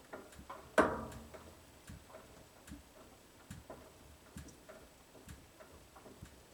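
Kenmore Series 500 high-efficiency washing machine clicking and knocking irregularly as its drum turns, with one loud clunk that rings briefly about a second in.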